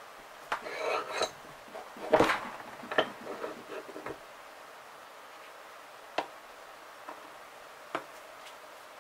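Metal clinks and knocks from a Saito FA170R3 crankcase being handled in a small arbor press while its bearings are installed: a run of knocks in the first four seconds, the loudest about two seconds in, then two single clicks later.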